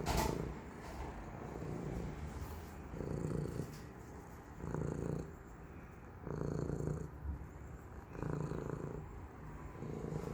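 Domestic cat purring close up: a low rumble that swells and fades with each breath, about every second and a half to two seconds. A brief sharp noise sounds right at the start.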